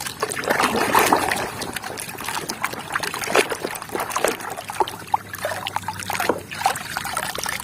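Water splashing and trickling, with many small knocks and clicks of objects being handled in it.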